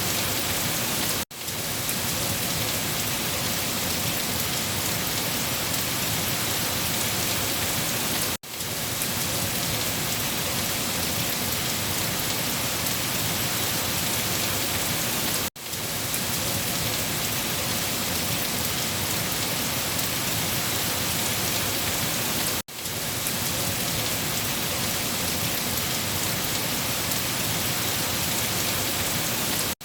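Steady, dense rain, an even hiss of falling drops. The recording drops out for a split second about every seven seconds, the seams of a short rain loop repeated.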